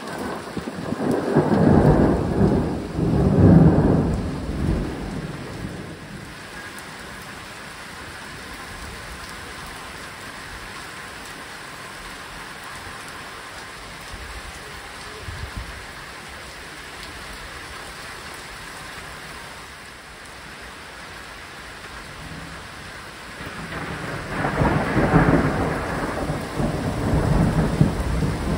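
Steady heavy rain falling, with two long rolling rumbles of thunder, one about a second in and the other starting near the end.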